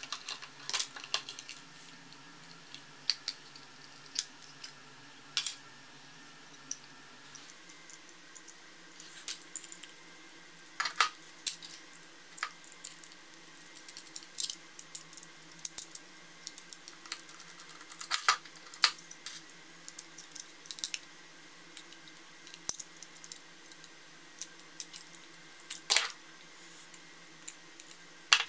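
Small screwdriver, screws and metal drive parts clicking and tapping as a 2.5-inch laptop hard drive is unscrewed and taken apart with a T4 Torx driver: irregular light metallic clicks and ticks, a few of them sharper and louder.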